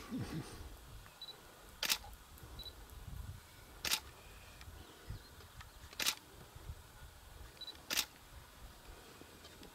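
Camera shutter clicking four times, about once every two seconds, with a few short faint high beeps between shots, over a low rumble.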